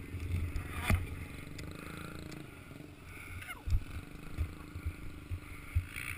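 Motocross bike's engine running at low revs as the bike moves slowly over dirt. There is a sharp knock about a second in, and short thumps from bumps jolting the camera's microphone.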